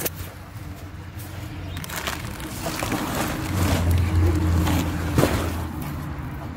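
Plastic shredder running: a steady motor hum with scattered knocks and rattles, growing louder for a second or two past the middle.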